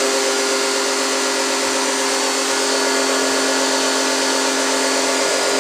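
Powerhouse electric pressure washer's motor and pump running steadily, with the water jet hissing from the spray wand; it runs continuously without stuttering, its automatic pressure switch bypassed. Near the end the motor winds down with a falling pitch.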